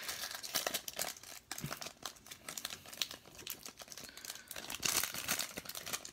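Foil trading-card pack wrapper crinkling and crackling as fingers work it open at the seal, with the loudest crackling about five seconds in.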